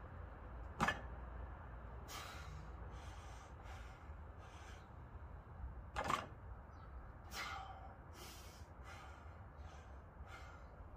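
A weightlifter breathing hard during heavy safety bar squats: a string of short, forceful breaths, with two sharper, louder ones about five seconds apart.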